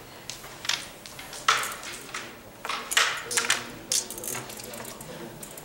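Carrom striker flicked across the wooden board and clacking into the carrom men: a series of sharp wooden clicks, the loudest about a second and a half in, with more pieces knocking together after it.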